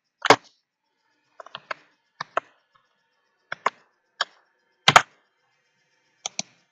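Computer keyboard keystrokes: about a dozen single key taps at an uneven pace, some in quick pairs, the loudest about five seconds in.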